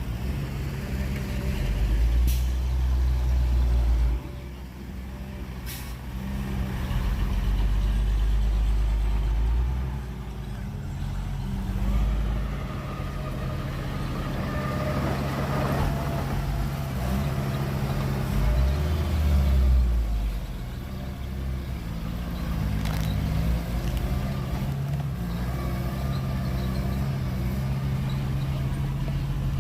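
Heavy diesel engines of earthmoving machines, a bulldozer and dump trucks, running steadily and revving deeply under load several times, with a few short sharp knocks.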